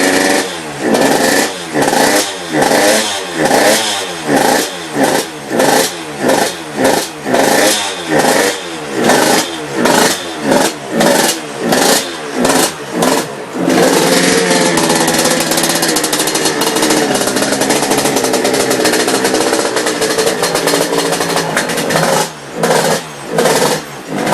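Yamaha YZ85's two-stroke single-cylinder engine revved in quick repeated throttle blips, each rising and dropping back, then held at a steady high rev for several seconds before a few more blips near the end. The engine is running rich, getting too much fuel and spitting it out of the exhaust.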